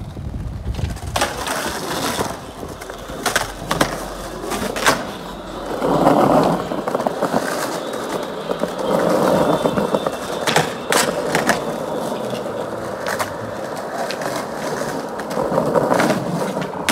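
Skateboard wheels rolling over asphalt and concrete, swelling and fading as the board passes, with several sharp clacks of the board striking the ground.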